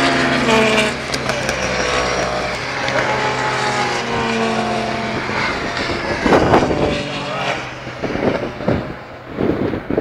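Racing engines passing on a motor-racing circuit, several engine notes gliding and falling in pitch one after another. They give way in the last few seconds to irregular loud bursts of noise.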